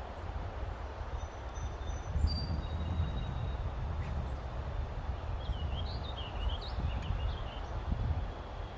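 Songbirds calling over a steady low rumble and outdoor hiss: a few thin high whistles in the first few seconds, then a quick warbling phrase a little past the middle.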